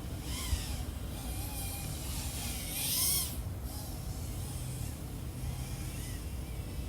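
iFlight AOS 3.5 V5 FPV quadcopter's brushless motors and propellers whining, the pitch rising and falling repeatedly with the throttle, with a louder, brighter surge about three seconds in.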